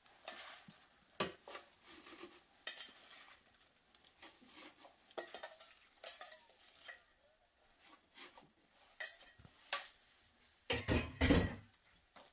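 Stainless steel bowl clinking and knocking while handfuls of fresh basil leaves are handled and dropped into a blender jar, in scattered short knocks, with a louder cluster of knocks near the end.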